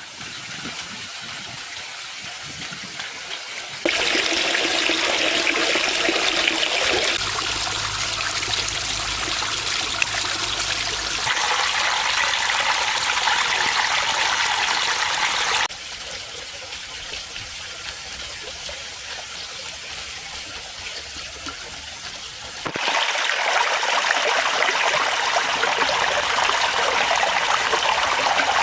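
Water from a garden pond waterfall, trickling and splashing steadily. It comes in several segments that jump abruptly between quieter and louder, brighter spells.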